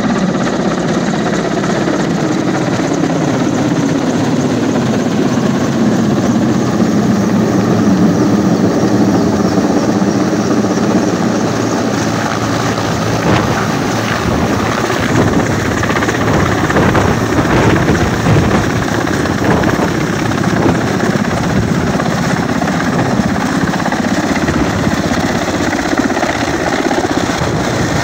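Air-ambulance helicopter flying low overhead, its rotor and engines loud and steady throughout. About halfway through, the rapid beat of the rotor blades comes through more strongly.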